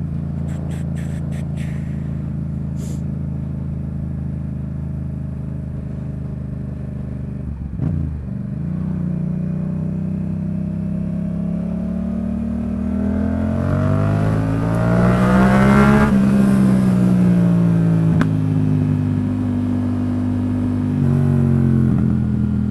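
Yamaha MT-07 parallel-twin motorcycle engine running under way. The pitch dips briefly about eight seconds in, then climbs steadily as the bike accelerates, peaks around two-thirds of the way through and falls back, with wind hiss rising and falling with the speed.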